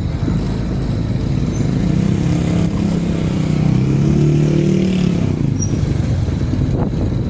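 Street traffic: a steady low rumble of vehicles, with one engine humming louder as it passes close by, about two to five seconds in.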